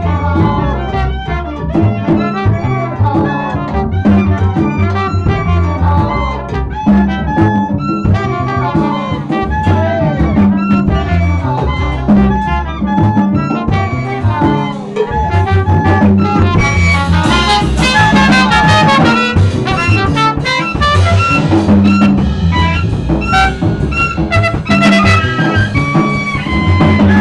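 Small live jazz band playing with upright bass, trumpet and drums over a steady beat. It grows louder and brighter about halfway through.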